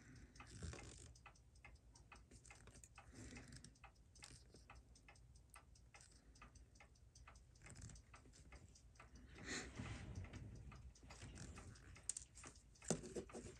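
Near silence with faint, rapid ticking clicks of steel tweezers working in a Seiko 6139 chronograph watch movement as a small wheel is lifted out, with a brief soft handling noise about ten seconds in.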